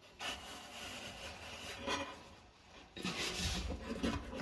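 Rubbing and scraping as a dryer's drive belt is worked by hand against the drum and pulley, in two stretches with a short lull just before three seconds in.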